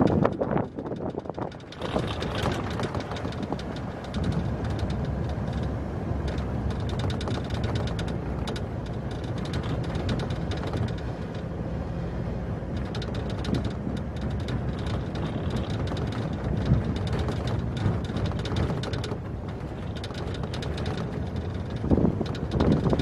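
Truck driving along a dirt mine road, heard from a camera mounted outside on its hood: steady engine and tyre noise, with wind buffeting the microphone near the end.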